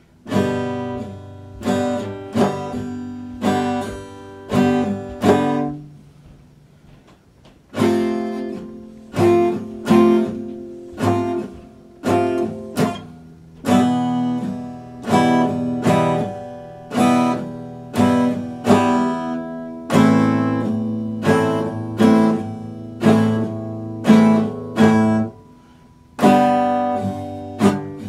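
Epiphone steel-string acoustic guitar played solo: a slow piece of fingerpicked chords that ring and fade, with a pause about six seconds in where a low note dies away, and another short pause near the end.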